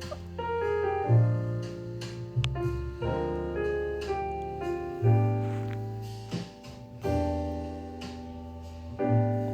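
Jazz piano music: chords played over deep bass notes, a new low note about every two seconds.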